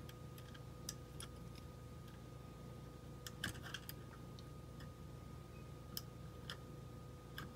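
Faint, scattered clicks of a tiny screwdriver tip against the plastic of a Hubsan Zino drone as its gimbal's shock-absorber dampeners are pressed down and popped loose. There is a small cluster of clicks about three and a half seconds in.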